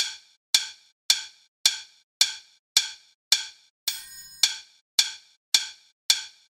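A percussive score of sharp, wood-block-like clicks at a steady beat of nearly two a second, each dying away quickly. About four seconds in, a click runs into a half-second buzzing burst.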